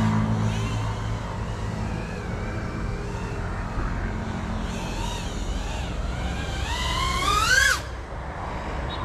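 Whine of a GEPRC Cinelog 35 FPV drone's motors and propellers, its pitch sliding up and down as the throttle is worked. Near the end the pitch climbs fast to its loudest, then cuts off abruptly.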